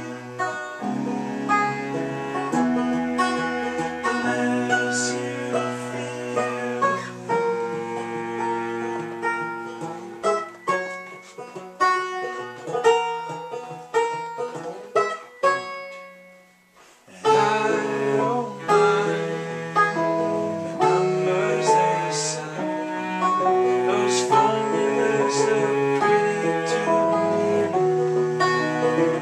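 Acoustic tune played live on a bowed cello, holding long low notes, together with a plucked string instrument picking a busier line. About sixteen seconds in the music almost drops out for a moment, then resumes.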